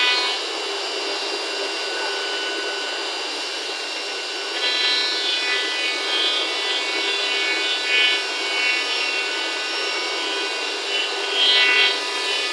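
CC-M1325A-3 CNC router's spindle whining steadily while its decorative-profile bit routes grooves into a wooden door panel, with the rasp of the cutter in the wood. The cutting noise grows a little busier after about four seconds.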